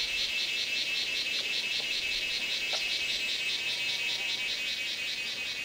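Night chorus of calling animals: a high, rhythmic chirping at about five pulses a second over a steady high drone.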